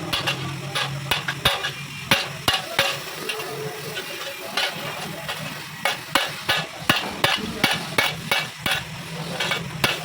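Sharp metallic taps and clicks from metalwork on a stove, coming irregularly several times a second over a low steady hum.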